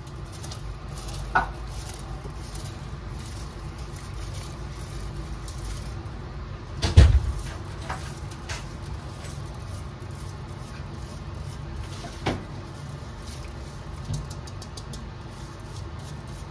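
Drained rice tipped and scraped from a steel strainer into a pot of hot water: a soft patter of grains and water, with a few knocks of the strainer against the pot, the loudest about seven seconds in. A steady low hum runs underneath.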